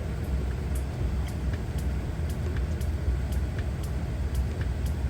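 Cadillac SRX engine idling steadily, heard from inside the cabin, with a light tick about twice a second.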